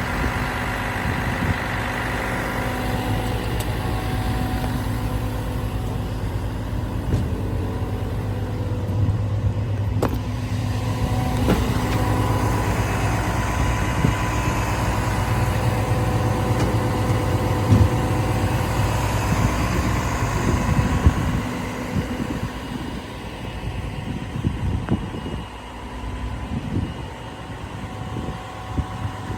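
Komatsu PC490LC-11 excavator's diesel engine running steadily, getting quieter and more uneven over the last several seconds.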